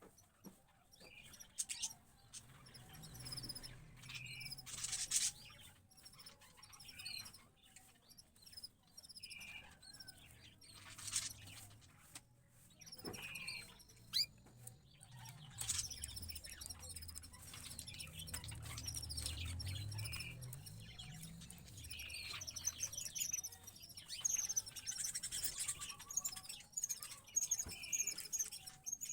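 Small caged birds chirping with many short, high notes: a canary and the young house sparrow it is feeding. A low rumble runs under the chirps in the middle.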